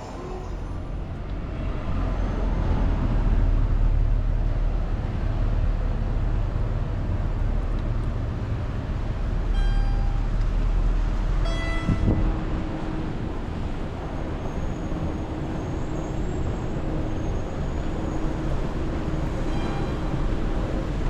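Train running with a steady low rumble that swells about three seconds in. Two brief pitched tones sound near the middle.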